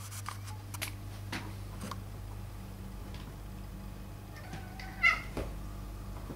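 Ragdoll cat giving one short meow about five seconds in, after a few faint clicks, over a steady low hum.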